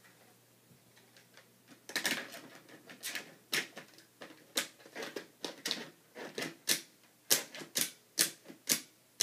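Sharp plastic clicks and clacks of Nerf blaster parts being handled and fitted together. They start about two seconds in and come roughly twice a second.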